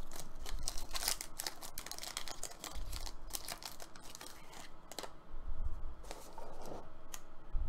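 Foil wrapper of a trading-card pack crinkling and tearing as it is worked open by hand, a rapid crackle of small sharp sounds.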